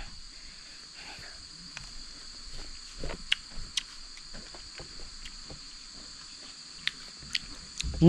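A steady, high-pitched insect chorus, with a scattered handful of short clicks.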